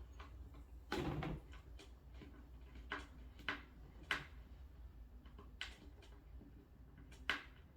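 Irregular knocks and clicks of flat-pack cabinet assembly, about seven in all with the loudest about a second in, as long screws are worked through into the cabinet's top panel.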